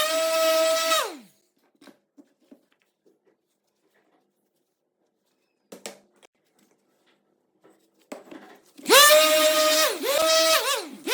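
An electric power tool's motor whines at a steady pitch, then winds down and stops about a second in. A few faint clicks of handling follow. Near the end the motor spins up again, its pitch dipping and recovering a few times before it settles.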